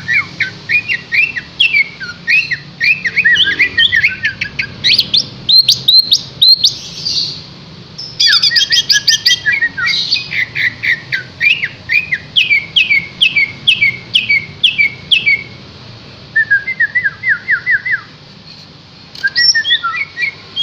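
Green leafbird (cucak hijau) in full song: long, varied runs of rapid chirps and whistled notes, broken by brief pauses.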